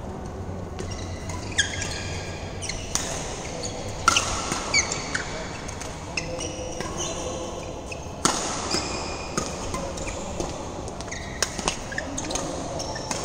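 Badminton doubles rally: rackets strike the shuttlecock with sharp hits about every second or so. Between the hits, players' court shoes squeak on the court mat as they move.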